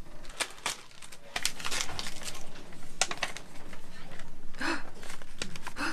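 Plastic courier mailer crinkling and tearing as it is opened by hand, with paper rustling as the documents are pulled out in a run of irregular crackles.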